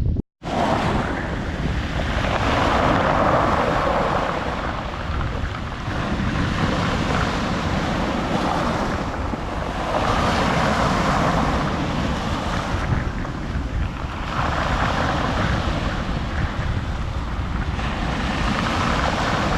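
Sea waves breaking on the shore, the surf swelling and falling back every four to five seconds, with wind buffeting the microphone.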